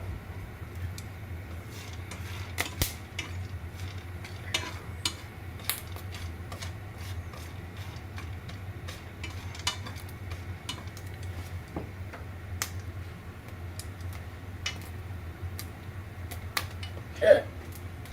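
Popcorn kernels popping: scattered sharp pops at irregular intervals, about one or two a second, over a steady low hum.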